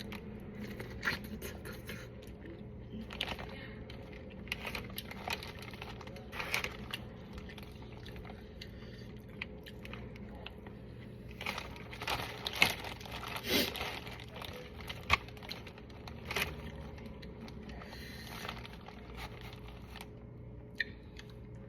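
Close-up eating sounds of a saucy meat-free seafood boil: scattered crunches, scrapes and crinkles of food being handled and bitten, busiest about two-thirds of the way through.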